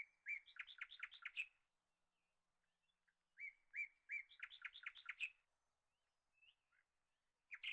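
A bird singing faintly: a short song given twice, about three and a half seconds apart, each a couple of level whistled notes followed by a quick run of higher notes, with the next song starting near the end.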